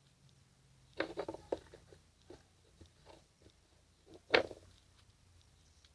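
Homemade slime being worked by hand, giving a quick run of small clicks about a second in, a few scattered clicks after, and one loud pop a little after four seconds.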